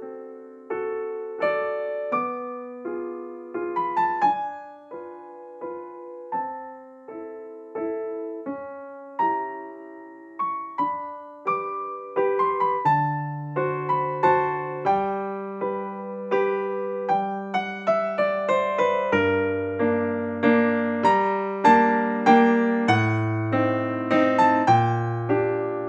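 Background piano music: a gentle melody of single struck notes that fade away, with lower bass notes joining about halfway through.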